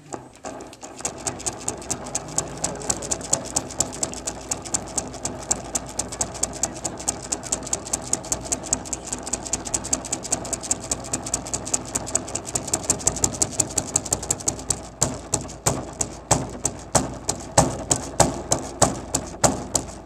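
Large hand-held frame drum beaten with a stick in a fast, even roll of about four beats a second. About fifteen seconds in, the beats turn louder and more spaced out, about three a second.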